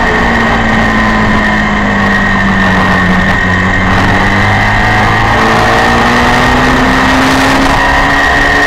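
Honda VFR400's 400 cc V4 engine at racing speed, heard from on board over heavy noise. The engine note falls for the first few seconds as the bike slows into a corner, then climbs steadily as it drives out of it.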